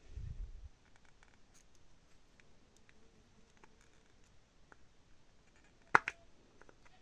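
Quiet handling of small tools and wires: a low bump at the start, faint scattered clicks, and one sharp snap in two quick parts near the end, the loudest sound.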